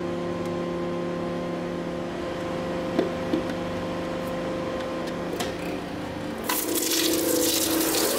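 Hydraulic press pump humming steadily, with a few light knocks as a combat helmet is set on the lower plate. About two-thirds of the way in, a louder crackling hiss begins as the press bears down and the helmet's shell starts to crack under the load.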